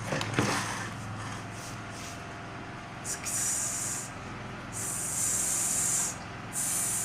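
A short burst about half a second in, then three hissing sounds, each about a second long with a sudden start and stop.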